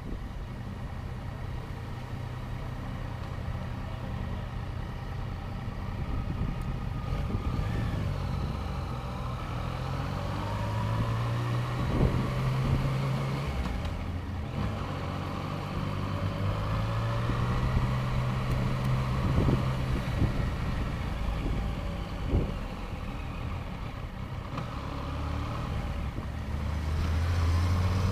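Motorcycle engine running in second gear at low town speed, its pitch rising and falling several times as the throttle is opened and closed.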